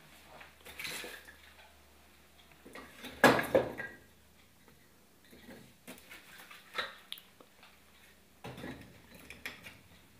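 Split firewood clunking and clattering as logs are lifted from a wicker basket and laid into a wood-burning stove's firebox, the loudest knocks a little after three seconds in. Faint small crackles come from the freshly lit kindling between the knocks.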